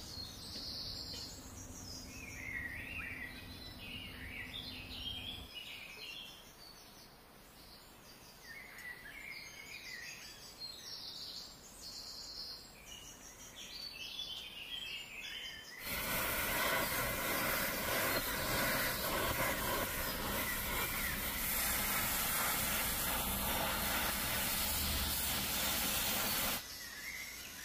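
Small birds chirping over a quiet outdoor background, with a low hum at first. About halfway through, a gas torch flame hisses loud and steady as it heats the bevelled end of a steel pipe elbow, then stops abruptly near the end.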